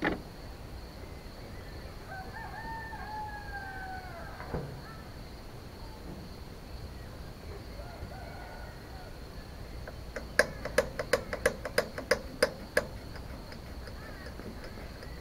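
A rooster crowing once, a single call of about two seconds that falls slightly in pitch. Near the end comes a quick run of about a dozen sharp clicks, about five a second.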